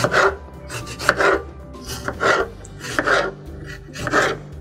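Serrated knife sawing through a tomato on a cutting board while dicing it, a short rasping stroke about once a second, five in all.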